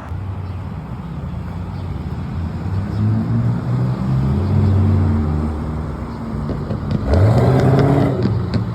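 Cars driving past on a road, their engines rising and falling as they go by. About seven seconds in, a louder car accelerates past, its engine rising sharply in pitch for about a second.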